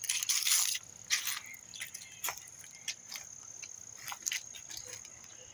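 Footsteps and rustling through dry brush, with a few scrapes in the first second or so and scattered sharp clicks and snaps after, over a faint steady high-pitched tone.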